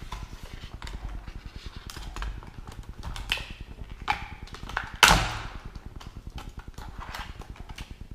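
Packaging being opened by hand: scattered clicks and rustles, with one loud sharp snap or tear about five seconds in.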